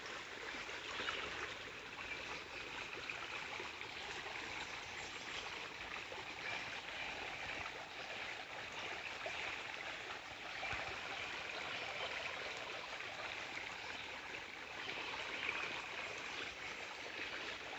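Shallow creek running over rocks: a steady rush of water.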